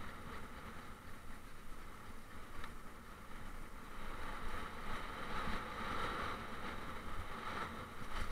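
Mountain bike rolling along a paved path: steady tyre noise with a low wind rumble on the action camera's microphone, growing a little louder about halfway through.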